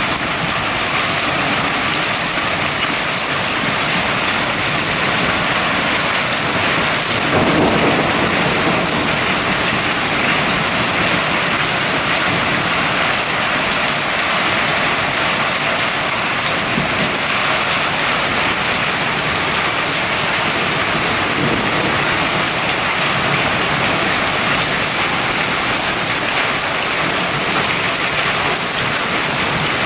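Heavy rain falling steadily, with a low roll of thunder about seven seconds in and a fainter rumble later.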